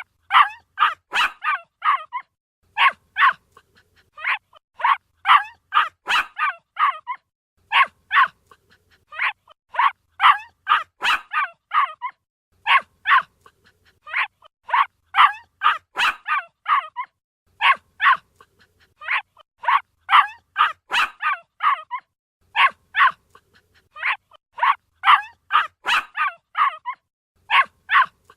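Puppy barking in high-pitched yaps, several quick yaps at a time with short pauses between the runs.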